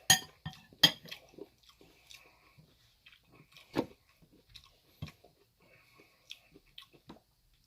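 Close-up chewing and mouth sounds of someone eating chickpea curry, broken by a few sharp clicks: two in the first second and another around four seconds in.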